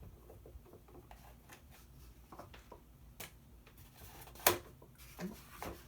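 Screwdriver working a screw out of a plastic toy: scattered small clicks and scrapes, with a sharper click about four and a half seconds in.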